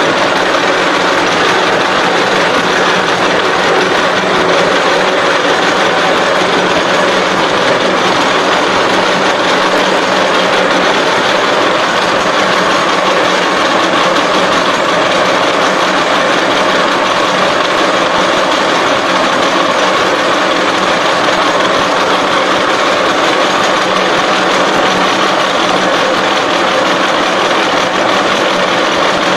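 SXA55 CNC H-beam bevelling machine running, its milling cutter machining a bevel along the edge of a steel H-beam flange: a loud, steady machining noise with no breaks.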